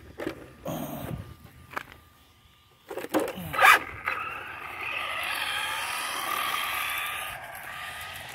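Remote-control toy car: a few knocks and scrapes, then a loud clatter a little after three seconds in. Its electric drive motor then whines steadily for about four seconds as it drives, fading near the end.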